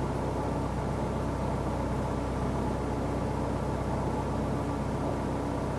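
Ferry engines running with a steady low drone, several even tones under a hum.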